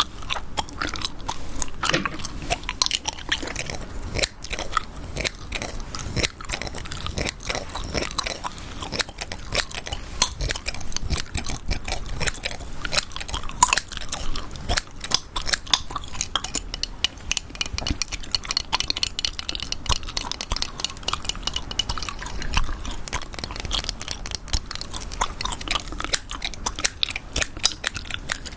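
Close-miked gum chewing: a continuous run of irregular wet clicks and smacks from the mouth.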